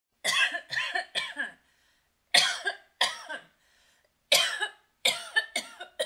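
A woman coughing in short fits: a quick run of three coughs, two single coughs, then another rapid run of coughs near the end.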